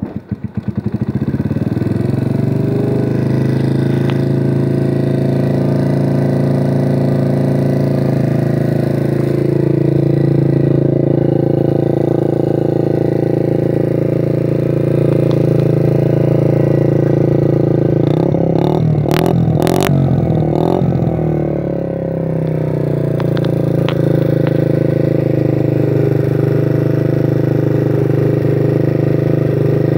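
Romet Ogar 900 moped's small four-stroke single-cylinder engine catching on the kick-start and settling into a steady idle. About 18 to 21 seconds in the note wavers briefly with a few clicks, then it idles steadily again.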